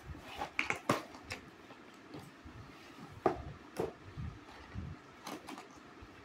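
Cardboard shipping carton being opened and handled: scattered taps, knocks and scrapes of cardboard as a boxed art set is pulled out and set down, the loudest about a second in and about three seconds in.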